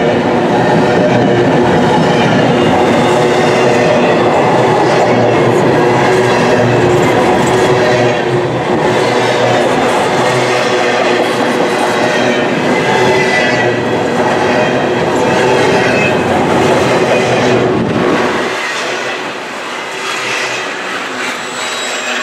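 Double-stack intermodal well cars of a long freight train rolling past, steel wheels clattering on the rails with steady squealing tones. The sound falls away about eighteen seconds in as the last cars pass.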